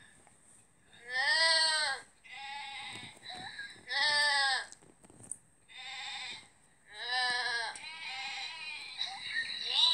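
Goats bleating again and again: about six wavering bleats, each half a second to a second long. The loudest come about a second in and about four seconds in, and the calls crowd together near the end.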